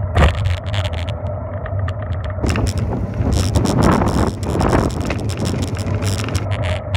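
Riding a bicycle over pavement: wind buffeting the microphone over a steady low tyre rumble, with many small rattling clicks from the bike. The rush swells louder about three to five seconds in.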